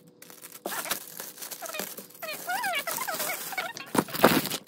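Thin plastic bag crinkling and rustling as a T-shirt is handled and pulled out of it, loudest near the end. A woman's high, bending voice sounds over it in the middle.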